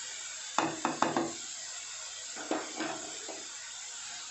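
Light knocks and scrapes of a bowl and a wooden spatula against a kadai of frying grated cabbage and carrot, in two short clusters (one about half a second in, one about two and a half seconds in), over a steady hiss.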